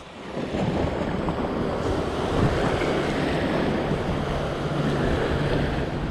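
Sea surf washing over a rock shelf and waves breaking on the reef, a steady wash of water noise, with wind buffeting the microphone.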